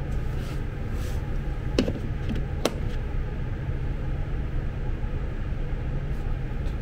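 Two sharp metallic clicks about two and three seconds in, from a wrench working on fasteners at a power wheelchair's rear wheel, over a steady low hum.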